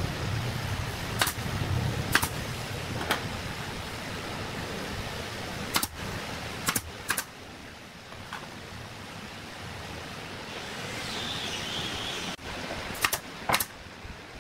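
Scattered sharp knocks and clicks of tools and timber being handled at a wooden pallet bed frame, about nine in all with two close together near the end, over a steady workshop hiss.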